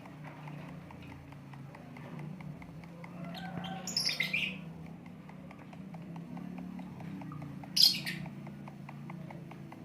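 Lovebirds squawking: a short burst of chattering calls about four seconds in, then one sharp, loud squawk near the end. A low hum and a faint, rapid ticking run underneath.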